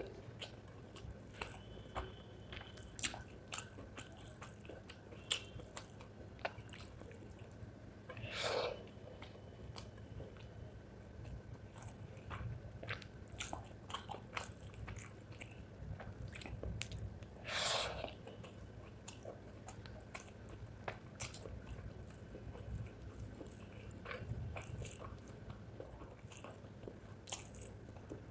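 Close-miked chewing and biting of spicy chicken gizzard with rice: many small wet clicks and crunches. Two louder, breathy sounds come about 8 and 18 seconds in.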